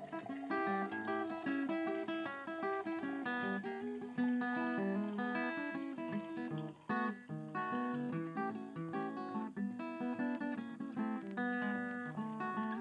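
Background music: a steady run of plucked acoustic guitar notes.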